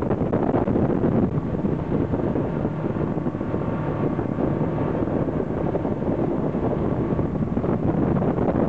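Motorboat running at speed, its engine and rushing wake water under steady wind buffeting the microphone.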